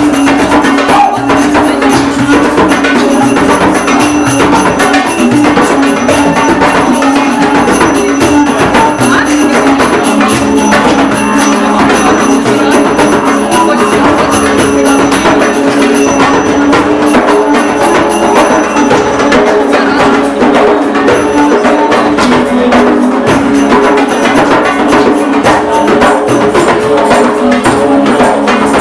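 Live ethnic hand-drum music: congas and a hand drum keep a steady rhythm with a guitar, over a sustained drone that steps down in pitch about ten seconds in.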